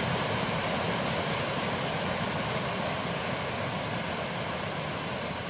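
Small rocky stream rushing and splashing over stones in little cascades: a steady rush of water.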